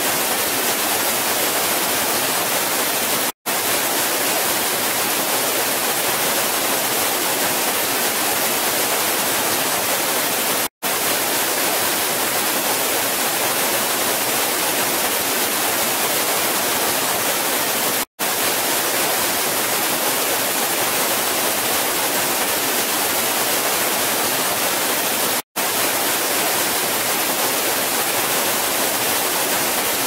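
Waterfall: a steady, even rush of falling water. It cuts out to silence for an instant four times, at even spacings of about seven seconds.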